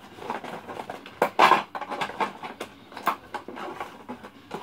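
A toy blaster's plastic and its cardboard packaging being handled while the blaster is worked free of the box: irregular clicks, knocks and rustles, the loudest knock about one and a half seconds in.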